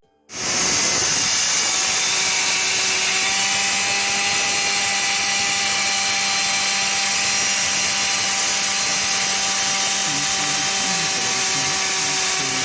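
Concrete-cutting power saw running steadily with a high, even whine; it starts abruptly just after the beginning. Faint voices come in near the end.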